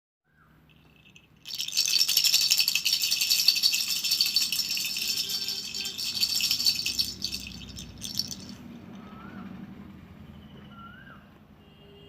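A baby's rattle toy shaken hard and fast, starting about a second and a half in and stopping after about seven seconds. A few faint short chirps follow near the end.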